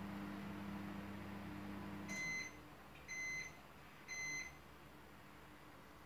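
Microwave oven running with a steady low hum that stops about two seconds in, followed by three beeps about a second apart: the end-of-cycle signal.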